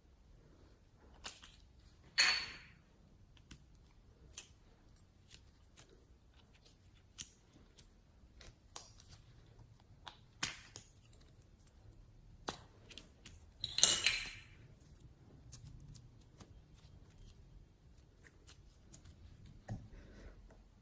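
Slime being handled and worked, giving scattered sharp clicks and pops. Two louder crackling bursts come about two seconds in and again near the fourteen-second mark.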